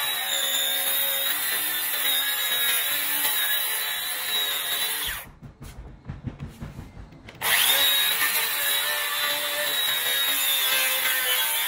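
Handheld circular saw running and cutting across pine pallet slats, with a steady high whine. It stops about five seconds in, and after a lull of about two seconds it starts again and carries on cutting.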